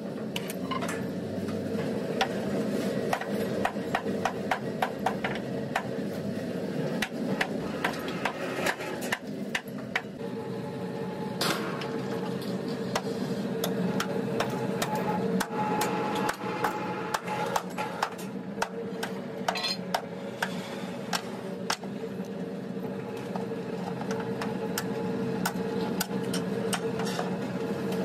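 Hammer striking steel in irregular repeated blows, over a steady low machine hum.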